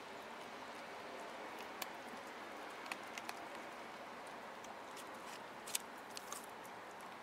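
An orange tabby cat eating off the ground, chewing with a few faint, sharp crunches over a steady low hiss.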